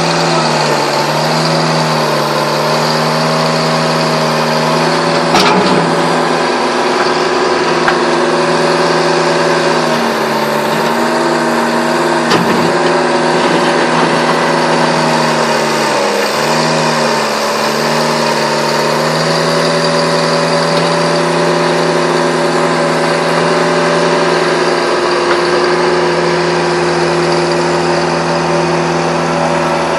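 Bobcat 863 skid steer loader's diesel engine running at a steady high speed while the machine is operated, its pitch sagging briefly a few times as the engine takes load and then recovering. A couple of sharp knocks are heard along the way.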